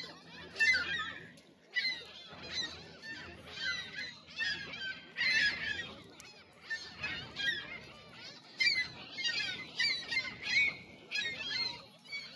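Canada geese honking, many short calls overlapping and repeating every half second or so.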